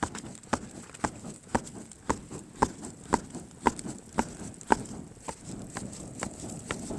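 Campfire coals being fanned by hand: a regular flap about twice a second from the fanning strokes, fading a little near the end.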